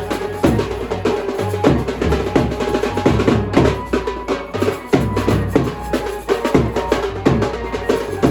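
Percussion-heavy desi ringtone music: a busy drum pattern whose strokes each drop in pitch, over held bass notes.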